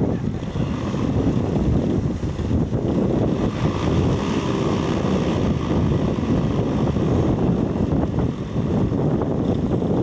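Strong wind buffeting the microphone: a loud, steady, rough rush that flutters irregularly.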